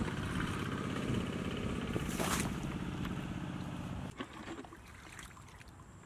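A motor drones steadily, with one short splash of water about two seconds in. The drone stops abruptly about four seconds in, leaving faint sloshing and dripping in shallow muddy water.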